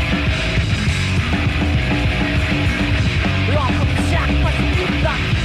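Live death metal band playing: distorted electric guitars, bass and drums in a loud, dense wall of sound, with a few quick rising squeals about three and a half seconds in.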